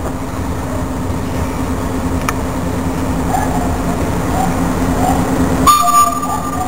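A pair of FS D.146 diesel locomotives coupled back to back hauls a freight train in, with a steady diesel drone that grows slowly louder as it approaches. A sudden high-pitched tone cuts in near the end and is the loudest sound.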